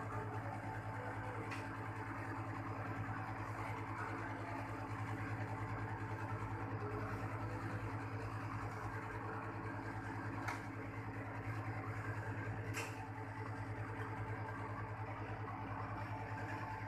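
Outdoor unit of a Panasonic split air conditioner running during a refrigerant check with the pressure gauges connected: the compressor's steady low hum together with the condenser fan. A few light clicks, about a second and a half in and twice more later on.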